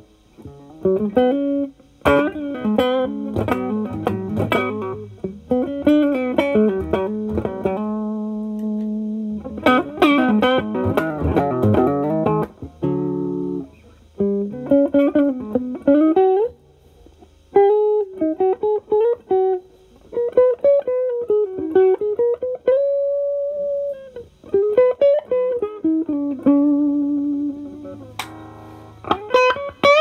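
Electric guitar, a Gibson SG with Alnico humbuckers, playing single-note lead phrases with string bends and vibrato through an Ibanez TS9DX Turbo Tube Screamer overdrive into a Marshall Valvestate amp's clean channel. The pedal is off at first and is switched on partway through, in HOT mode.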